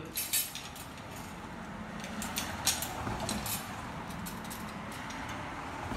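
Metal rope-rescue hardware clinking and clicking as carabiners and pulleys are handled and clipped into a rope haul system: a few sharp clinks near the start and a cluster about two to three seconds in, over a steady low background noise.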